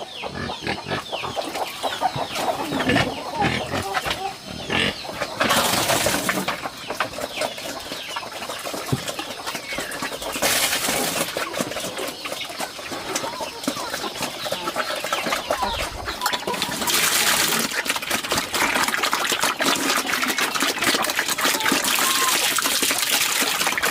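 Chickens clucking among other farmyard animals, with three bursts of rushing noise and a steady run of small clicks in the later part.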